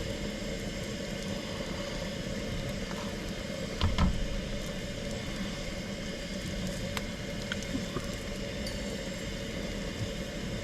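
Steady sizzling of dough frying in hot grease in a pan, with a single knock about four seconds in.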